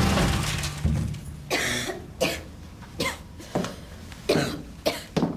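A person coughing over and over in thick smoke, a run of about seven short coughs starting about a second and a half in.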